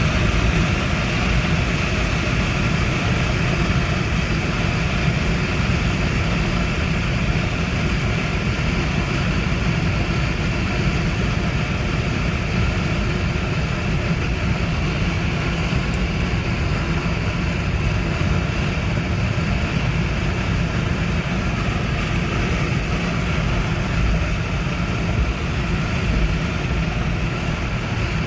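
A 2004 Chevrolet Trailblazer running: a steady, unbroken low vehicle drone with no change in pitch or level.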